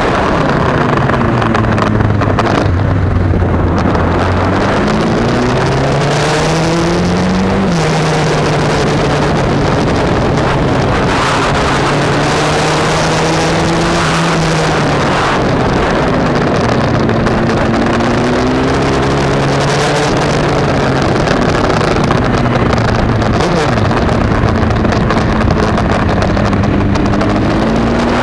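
Yamaha MT-09's three-cylinder engine on track, its note falling as the throttle is closed and climbing again under acceleration, with the pitch dropping at gear changes. This falling and climbing happens several times. Wind rush on the bike-mounted microphone runs underneath.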